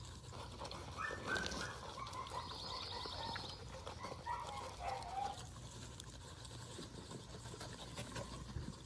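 Husky puppies eating watermelon, with faint wet chewing clicks. Short high chirps repeat through the first half, with a quick high trill in the middle, over a low steady hum.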